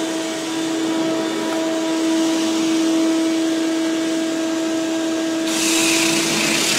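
Vacuum cleaner running with a steady droning hum, its hose end plugged by a child's hand stuck in it. About five and a half seconds in, a louder hiss of rushing air joins the drone.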